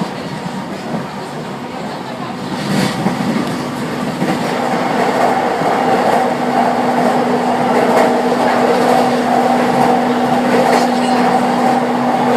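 Inside a Keiyo Line electric train running along the track: the rumble of the wheels and a few rail-joint clacks, with the electric drive's steady hum growing louder from about four seconds in.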